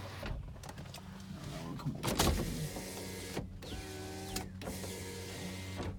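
2001 Toyota Avalon power window motor running the glass down and up, with brief pauses where it stops and reverses. There is a thump about two seconds in.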